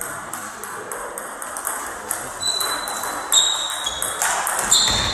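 Table tennis rally: the ball clicking in quick succession off the bats and the table. A few short high squeaks come in over the second half.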